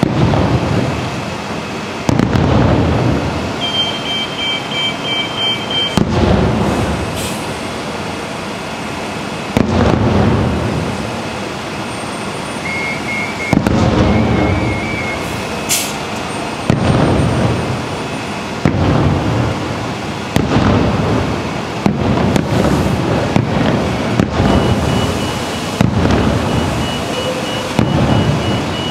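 Aerial fireworks shells bursting in a steady series of booms, one every two to four seconds, each dying away in a rumble.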